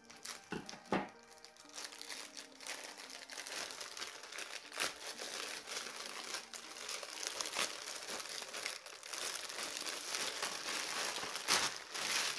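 Crinkly packaging rustling and crackling as it is handled and opened, starting about two seconds in, with a few sharp crackles and the loudest ones near the end.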